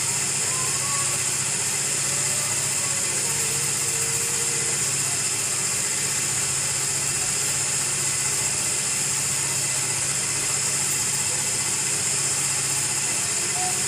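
Steady hum with a high hiss from a small electric motor running without pause, most likely the cotton candy machine's spinner motor.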